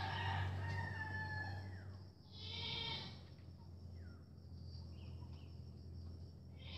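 Farm animals calling: a long, loud cry that ends about a second in, then a shorter cry near three seconds. Faint bird chirps come in between, over a steady low hum.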